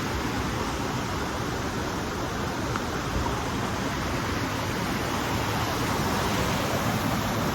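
Steady rushing of water, an even roar with no rhythm or pitch.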